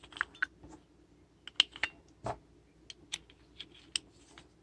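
Scattered small clicks and taps as batteries and a flashlight's plastic and metal parts are handled, the sharpest click about one and a half seconds in and a duller knock just after two seconds.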